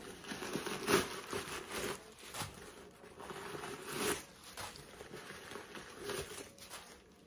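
A leather Coach Swinger bag being opened by hand and its paper stuffing pulled out: irregular rustling and handling noises, louder about one, four and six seconds in.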